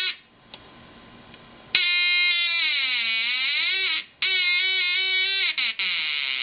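Loudspeaker driven by a breadboarded 555 timer oscillator, giving a buzzing tone whose pitch slides down and back up as the potentiometer is turned. The tone drops out for over a second near the start, returns, and cuts out again briefly about four seconds in.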